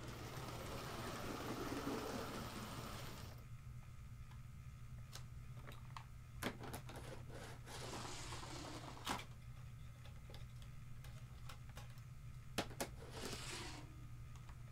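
HO scale model train coaches being handled and set back on the track: rustling for the first few seconds and again near the end, with several sharp clicks in between, over a steady low hum.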